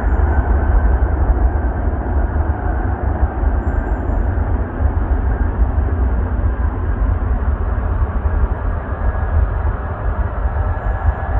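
Airbus A330-343 taking off, its two Rolls-Royce Trent 700 turbofans at takeoff power: a steady roar with a heavy low rumble.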